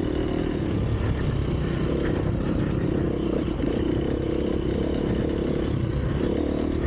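Enduro dirt bike engine running at a steady, low pace while riding off-road, heard from the rider's own microphone.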